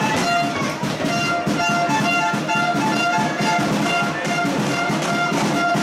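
Instrumental background music with brass, held notes over a steady beat.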